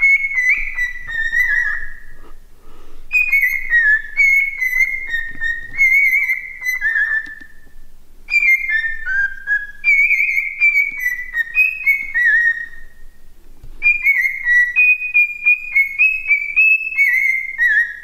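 Cockatiel whistling its song at its own reflection in a mirror: four runs of clear, warbled whistle notes, each run stepping down in pitch, with short pauses between runs.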